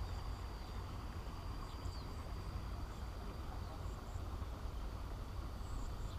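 Outdoor ambience at a pond: a steady high insect drone over a low, uneven rumble, with a few faint high chirps.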